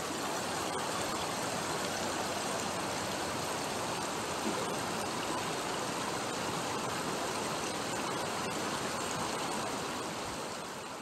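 Steady rushing noise, like running water, that begins to fade out near the end.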